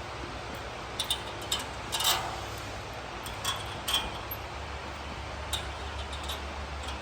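Light metallic clicks and clinks, about half a dozen spread unevenly over several seconds, as steel washers are set onto the mower's bolts, over a low steady hum.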